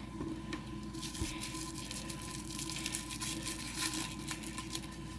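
Small toy packaging being torn open and crinkled by hand, a busy run of tearing and crackling from about a second in until near the end.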